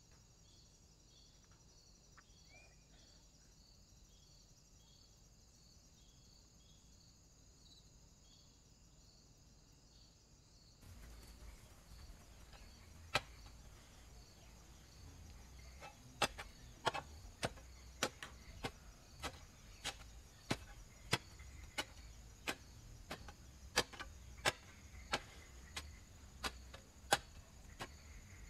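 A spade repeatedly chopping into hard, dry ground: sharp strikes that begin about halfway through and come roughly one and a half a second. Insects chirp steadily underneath throughout.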